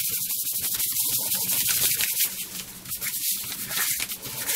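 A cloth rubbed briskly back and forth over the flesh side of a leather piece, a rapid rasping scrub of many short strokes. It is buffing the Tokonole-treated suede side smooth.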